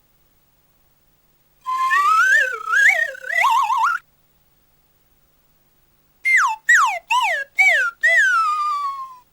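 Two comedy whistle sound effects: first a wobbling whistle tone that wavers up and down for about two seconds, then after a pause four quick downward-sliding whistle notes followed by one longer falling slide.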